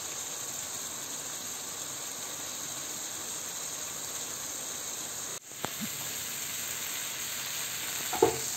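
Spice paste for a prawn malai curry sizzling and bubbling in oil in a nonstick frying pan over a low flame: a steady frying hiss, with the oil separating as the masala is fried down. It is broken briefly about five seconds in, and a short ringing knock comes near the end.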